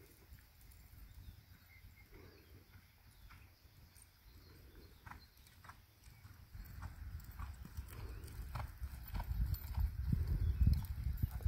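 Hoofbeats of a ridden horse on soft arena dirt, faint ticks at a jog and walk, with a low rumble that grows louder over the last few seconds as the horse comes nearer.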